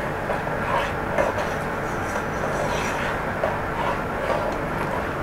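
A spoon stirring instant coffee into hot water in a saucepan: a repeated swishing of the liquid with a few light clinks of the spoon against the pan, over a steady low rumble.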